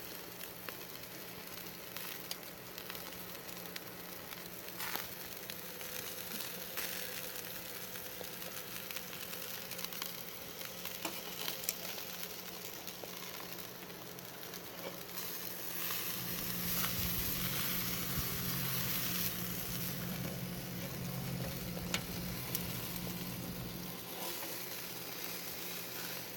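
Meat sizzling on a barbecue grill: a steady hiss with scattered small pops, growing a little louder about two-thirds of the way through.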